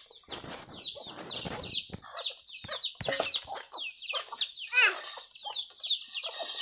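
A flock of young free-range chickens clucking and peeping, a steady run of short, high, falling calls, while they are fed rice; one longer, lower call comes near the middle. A rustling scuffle on the ground is heard from about half a second to two seconds in.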